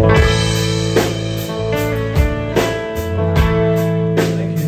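Live country band playing without vocals: strummed acoustic guitar carries the rhythm over an electric bass line and light drums.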